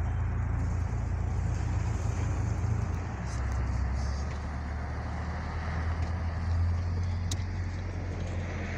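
Steady low rumble of a car's engine and road noise, heard from inside the moving car.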